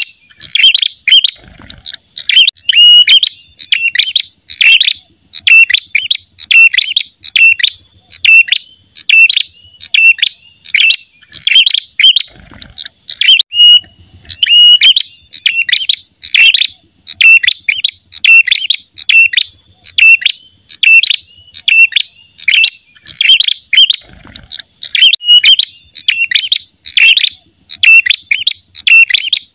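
Male ashy tailorbird singing its combative 'fighting' song: loud, sharp chirps repeated in quick bursts about twice a second, almost without a break. It is the aggressive territorial song that draws in rival tailorbirds.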